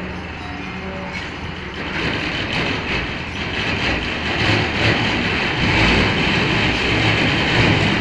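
Heavy truck hauling a house on a trailer rolls slowly past, its engine and running gear making a dense rumble that grows louder from about two seconds in.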